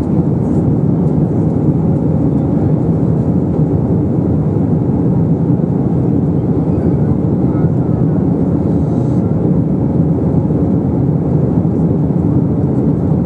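Steady cabin drone of an Airbus A321 in flight, heard inside the cabin over the wing: engine noise and rushing airflow, low and even.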